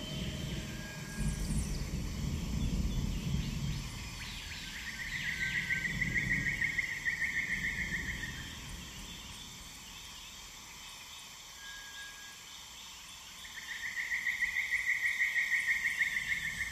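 Rhythmic trilling animal calls: two runs of rapid, even pulses a few seconds each, over a low rumble that fades out after the first few seconds.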